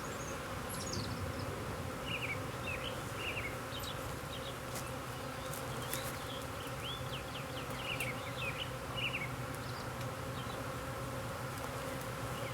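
A swarm of honey bees flying close around the microphone, a steady, dense buzzing hum from many wings.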